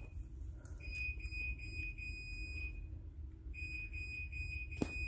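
Electronic beeping: a steady high-pitched tone held for about two seconds, sounding twice, over a low rumble. A single sharp click comes near the end.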